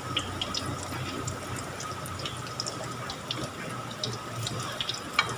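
Shredded sweet potato fritters frying in shallow oil in a wok: a steady sizzle with scattered small crackling pops. A sharp tap near the end.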